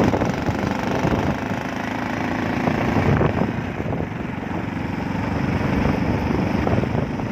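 Vehicle engine running steadily, with road noise, while on the move.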